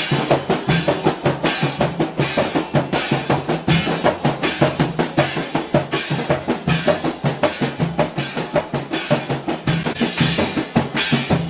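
Rebana Mandar ensemble: a group of large frame drums beaten by hand in a fast, steady interlocking rhythm, with a cymbal struck with a stick and a jingling tambourine on top.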